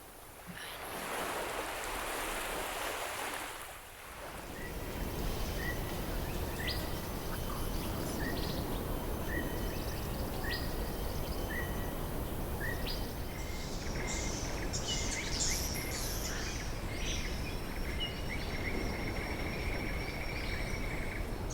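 Tropical beach ambience. A wave washes in and recedes in the first few seconds, then a steady low rush of distant surf carries on under a bird repeating a short chirp about once a second. Other birds join in over the second half.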